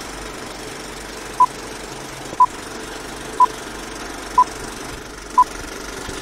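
Old-film countdown leader sound effect: a film projector's steady running noise, with a short single-pitched beep once a second, five beeps starting about a second and a half in.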